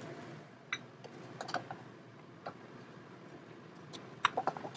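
Wooden spatula knocking and scraping against a frying pan and a ceramic plate as cooked prawns are moved onto the plate: scattered sharp taps with a short ring, the loudest cluster near the end.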